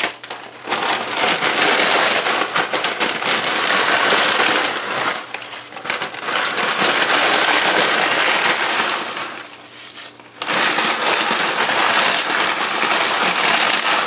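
Plastic packet of dry chow mein noodles crinkling and rustling as the noodles are shaken out into a pot of boiling water, with a short lull about ten seconds in.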